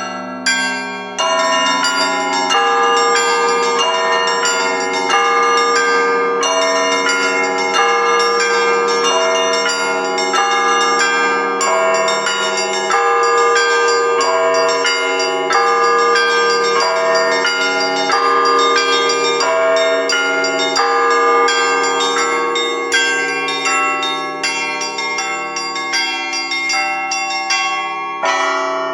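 Orthodox monastery church bells rung together in a continuous peal: many small bells struck in quick succession over the long, steady ringing of larger bells, with a brief lull about a second in.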